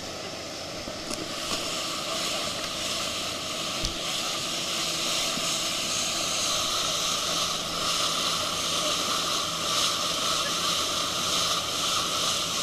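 Speedboat running at speed: a steady engine hum under the rush of water from the wake and wind, the noise growing louder about a second and a half in, with a single low bump about four seconds in.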